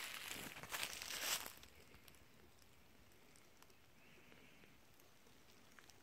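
Footsteps crunching on dry leaf litter and undergrowth for about the first second and a half, then stopping.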